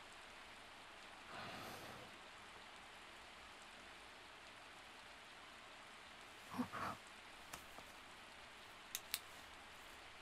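Light rain falling, a faint steady hiss. A short, soft voice-like sound comes in about two-thirds of the way through, and a few faint ticks follow near the end.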